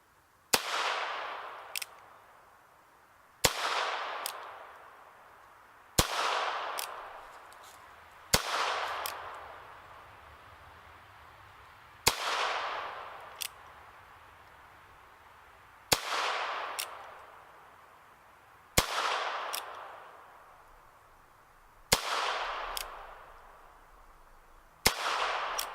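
Chiappa .22LR single-action revolver fired nine times, slowly and deliberately, a shot every three seconds or so. Each sharp crack is followed by an echo that dies away over about two seconds, and a short click comes after most shots.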